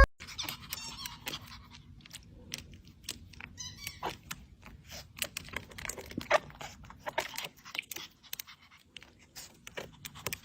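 A pet making small noises: faint, irregular clicks and crunches, like chewing.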